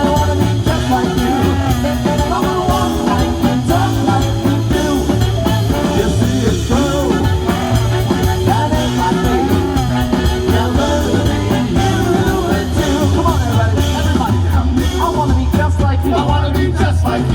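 Live swing band playing an up-tempo passage with no lyrics, over a steady, pulsing bass line.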